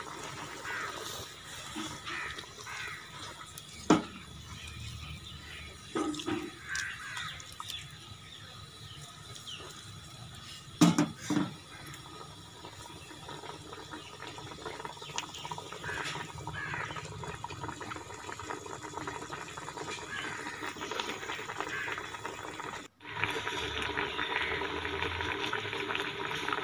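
Fish pieces simmering in water in a metal pot, a steady bubbling as a fish stock (yakhni) cooks, with a few sharp knocks in the first half, the loudest about eleven seconds in. After a brief break near the end the bubbling is louder.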